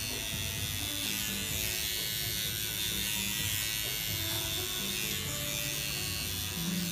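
Tattoo machine running steadily as it works ink into the skin of an upper arm, a continuous electric buzz.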